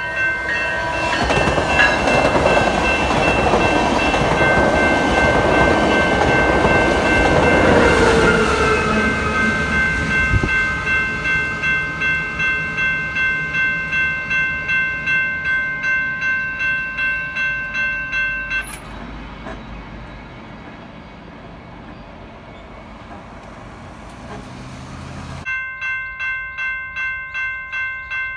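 Railroad crossing bell ringing at a steady pace of about two strokes a second while a passenger train passes at speed, its horn dropping in pitch as it goes by about eight seconds in. The bell cuts off abruptly near nineteen seconds, leaving a lower rumble, and a crossing bell starts again abruptly about twenty-five seconds in.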